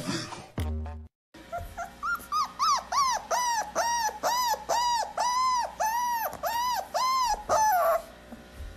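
Pit bull whining in a rapid series of high, arched cries, each rising and falling in pitch, about three a second; they start faint and grow louder.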